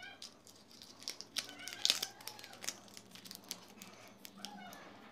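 Hand work on plastic keyboard parts: irregular light clicks and crinkling, loudest about two seconds in, with a few brief squeaks.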